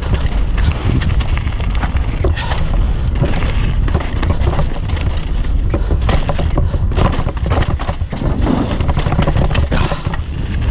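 Wind rumbling on the camera microphone during a fast mountain-bike descent, with tyres crunching over rock and gravel and the bike rattling and knocking over bumps.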